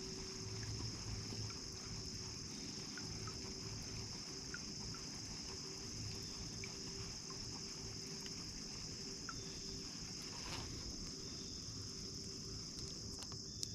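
Steady high-pitched insect chorus that does not break, with a few faint small clicks.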